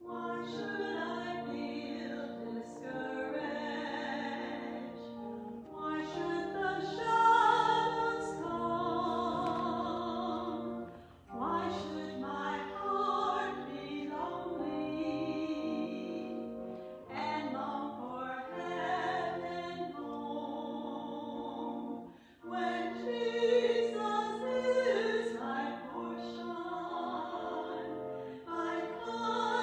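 Women's voices singing a hymn with church organ accompaniment, in phrases of held notes with short breaks between them.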